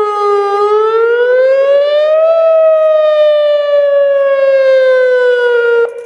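Whelen WPS 2902 electronic outdoor warning siren sounding its wail tone for a weekly test: a loud, many-overtoned tone that sweeps up in pitch for about two seconds, then slides slowly back down, and cuts off sharply near the end.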